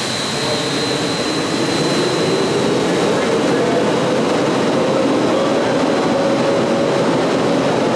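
Steady roar of factory machinery with a high whine that fades out over the first few seconds.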